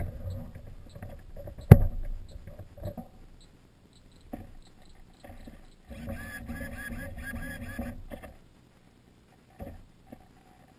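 Handling noises on the model airboat: scattered knocks and rattles on the hull, with one sharp, loud knock about two seconds in. Around the middle comes a stretch of quick repeated high chirps. The nitro engine is not running.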